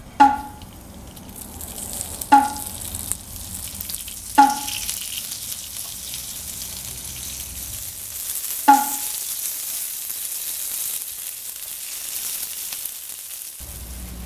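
Vegetables sizzling and frying on a hot iron griddle plate over a gas stove, stirred as part of seasoning the new plate. Four sharp ringing clinks of a utensil against the plate break through the steady sizzle.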